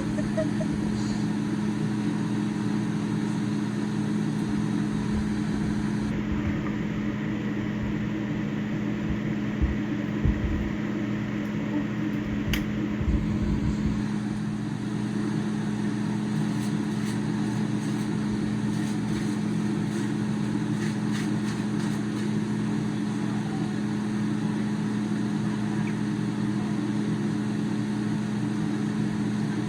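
A steady low mechanical hum at a constant pitch, with a few faint low thumps around the middle.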